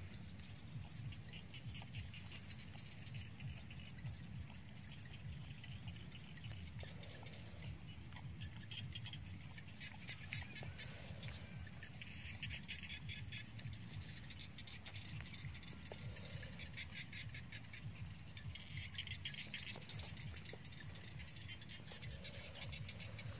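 Open-field ambience: bouts of rapid, high chirping trills come and go every few seconds over a steady low rumble.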